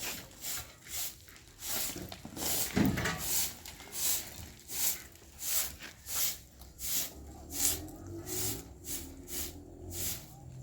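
Rhythmic rubbing or scraping strokes, about two a second, with one louder low thump about three seconds in.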